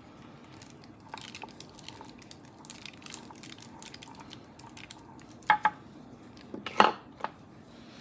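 A roller pressed and rolled over a thin plastic stencil on polymer clay, with light clicks and crinkles from the plastic sheet. Near the end come a few louder, sharper handling knocks and rustles.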